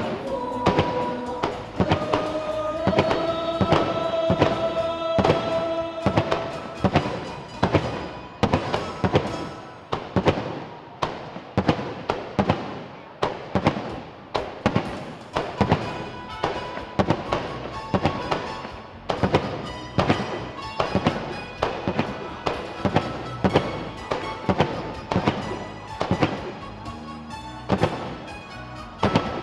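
Aerial fireworks shells bursting in quick, irregular succession, several bangs a second at times, with music playing underneath; the music's held notes stand out most in the first several seconds.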